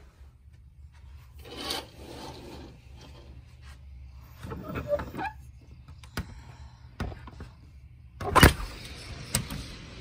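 A curtain being pushed aside and a window being unlatched and slid open: rubbing and sliding, a few sharp clicks, and a loud knock about eight and a half seconds in. After that comes a steady faint hiss of outside street noise.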